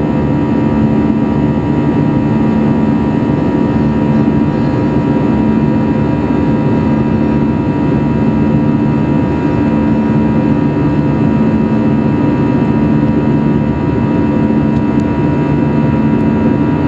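Steady jet engine and airflow drone heard inside the cabin of an Airbus A320-200 after takeoff, with constant humming tones over the rush and no change in pitch.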